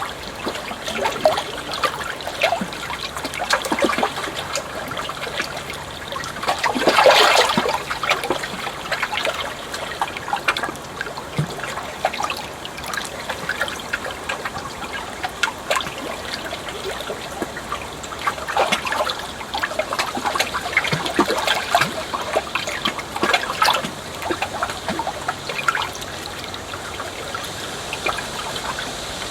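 Flowing water trickling and splashing without a break, in many small irregular splashes, with one louder surge of water about seven seconds in.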